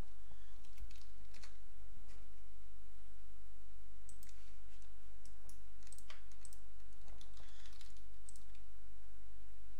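Computer mouse clicks and keyboard key presses, sharp and irregular, over a steady low hum.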